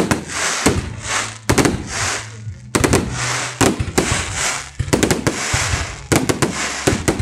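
Aerial fireworks bursting: a dozen or so sharp bangs at uneven intervals, some in quick pairs, each trailed by a crackling hiss.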